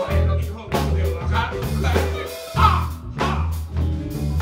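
Live rock band playing amplified: drum kit, bass and electric guitars, with a brief break in the bass and drums about two and a half seconds in.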